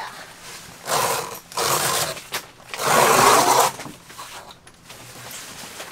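Zippers on a fabric tent wall being pulled: three rasping zip strokes, about one and two seconds in, then a longer, louder one around three seconds in.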